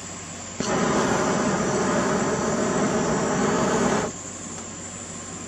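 Syngas (carbon monoxide and hydrogen) forced out of a balloon and lit by a propane torch, burning as a jet of flame with a loud, even rush that starts suddenly about half a second in and cuts off about three and a half seconds later. A quieter steady hiss runs underneath.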